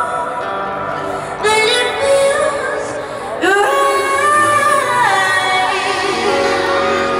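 A woman singing live into a handheld microphone over a concert PA, phrases with long held notes and vibrato, over sustained backing music, heard through a phone in the crowd.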